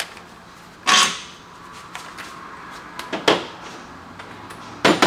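Tool-on-metal noise from a car's rear suspension as the shock bolt is worked out. There is a short burst about a second in, a click followed by a sharper knock around three seconds, and another knock near the end.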